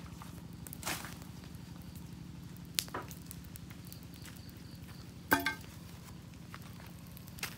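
Open wood campfire crackling, with a few sharp, widely spaced pops over a steady low background; the loudest pop comes about five seconds in.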